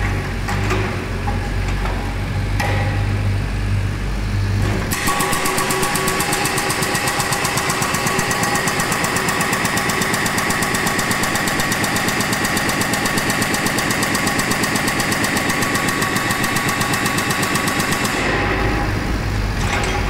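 A Volvo mini excavator's diesel engine runs steadily. About five seconds in, its hydraulic breaker hammer starts pounding concrete with rapid, even blows, and it stops a couple of seconds before the end, leaving the engine running.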